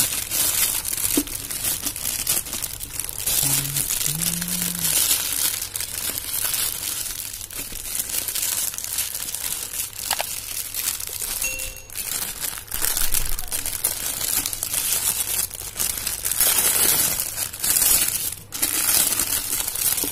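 Clear plastic wrapping crinkling and rustling steadily as hands handle it and pull it off a new motorcycle air filter.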